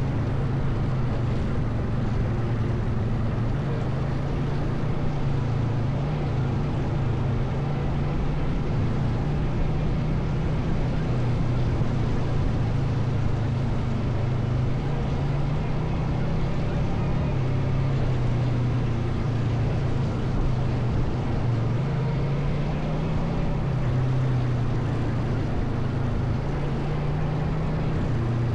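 ATV engine running steadily under way, its pitch wavering slightly.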